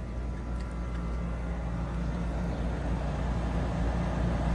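Outdoor air-conditioner condensing unit running: a steady low hum from the compressor with the condenser fan's even rush over it.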